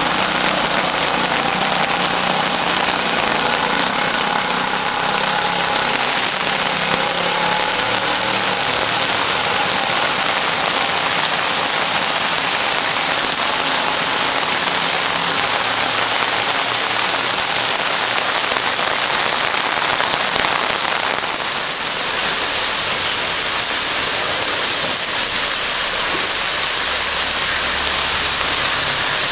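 Heavy monsoon rain pouring down onto rooftops and a flooded street: a loud, dense, steady hiss.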